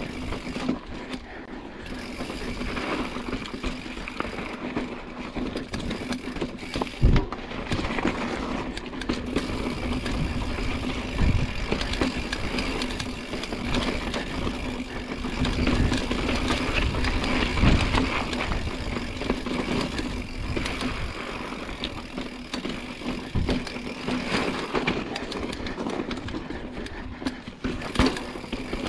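Mountain bike being ridden over a rough trail: tyre and drivetrain rattle with a few sharp knocks from bumps, over a steady hum.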